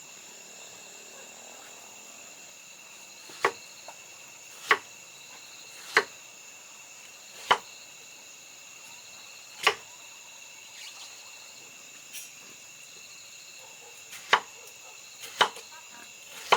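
Steady high chirring of insects such as crickets, with a series of sharp single knocks a second or two apart: five in the first half and a few more near the end.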